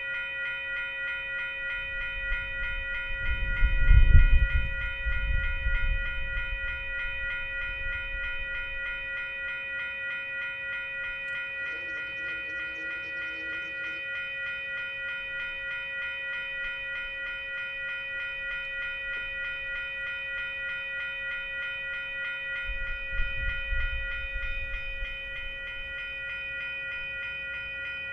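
Railway crossing warning bell ringing steadily and fast as the crossing signals flash. A low rumble swells twice, loudest about four seconds in and again near twenty-three seconds, and a faint distant train horn sounds briefly about twelve seconds in.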